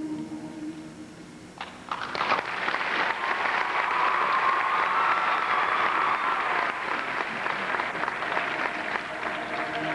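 Audience applause, breaking out suddenly about two seconds in and continuing steadily.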